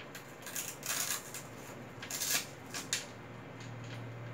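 Hands handling the plastic parts of an RC monster truck during assembly: irregular rustling and light clicks, busiest about one and two seconds in. A faint low steady hum comes in near the end.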